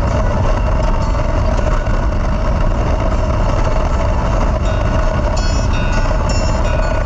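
Loud, steady rumble of vehicle noise with a constant hum. A few short high-pitched tones come in around five and a half to six and a half seconds in.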